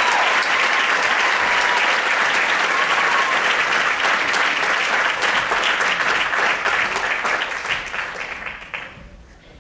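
Audience applauding, a dense steady clapping that fades over the last couple of seconds and stops about nine seconds in.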